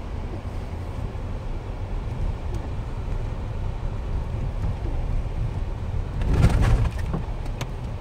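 Jeep Wrangler JK driving on a snowy road, heard from inside the cab: a steady low drone of engine and road noise, with a brief louder rush about six seconds in.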